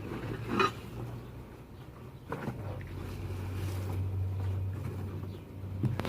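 A few short clicks and knocks from steel suspension brackets and packaging being handled, the loudest about half a second in, over a steady low hum.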